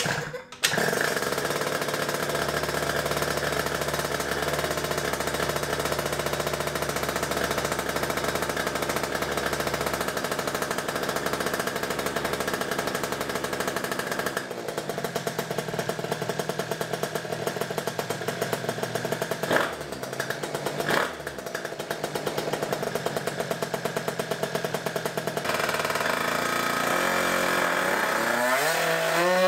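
Two-stroke scooter engine (the RC-One Typhoon) with an expansion-chamber exhaust, starting about half a second in and running steadily on the dyno roller. It changes note partway through, gives two short sharp sounds about two-thirds of the way in, and revs up with a rising pitch near the end.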